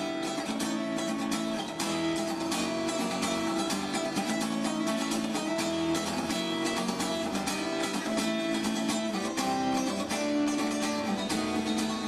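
Background music led by acoustic guitar, plucked and strummed.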